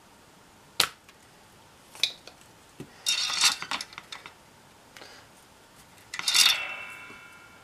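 Sharp snapping clicks of a spring-loaded desoldering pump (solder sucker) firing as it draws molten solder out of the old encoder's pin holes on a circuit board. Then a rattling clatter of the board and tools being handled, and near the end a clink that leaves a short metallic ring.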